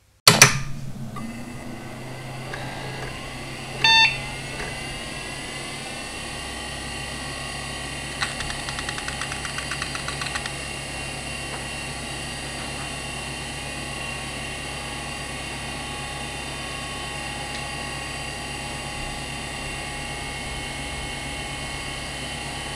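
PC powering up with a 1993 Conner CP30174E 3.5-inch IDE hard drive: a loud click at switch-on, then the drive and fans spinning up in a rising whine. A single short POST beep comes about four seconds in, and a couple of seconds of rapid ticking follow around eight to ten seconds in. Then the drive runs at its 3822 rpm with a steady whine over fan noise.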